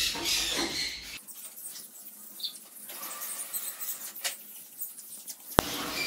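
Hand trigger spray bottle squirting in short hisses as it mists pet galahs for a feather-care bath. There is a brief high squeak about two and a half seconds in and a sharp click near the end.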